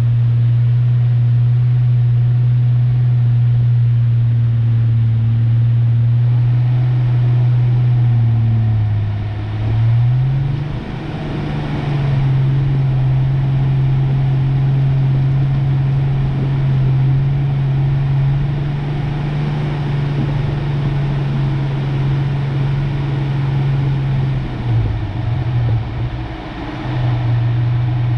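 1993 Ford Ranger pickup's engine droning steadily as the truck drives. About ten seconds in, the engine note dips, then settles at a slightly higher pitch, with another brief dip near the end.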